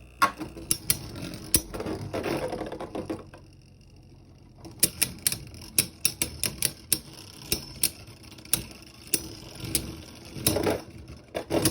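Beyblade spinning tops clashing in a plastic stadium: rapid, irregular sharp plastic clacks, with a short lull about three seconds in before the clacking resumes.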